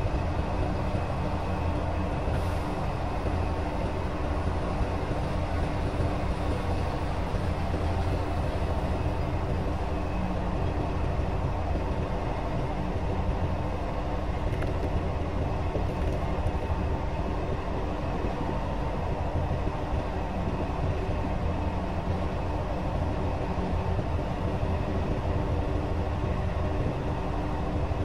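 Komatsu hydraulic excavator's diesel engine running at a steady speed, a low hum with a few steady tones over it, while the loaded bucket is held still.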